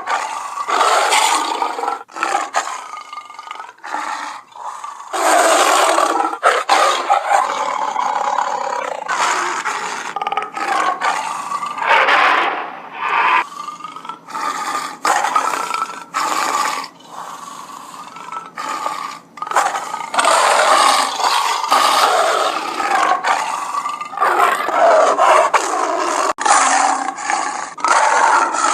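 Sound-effect roars made for Smilodon fatalis, the extinct sabre-toothed cat: a long string of loud, big-cat-like roars and snarls, one cut straight after another with abrupt breaks between them.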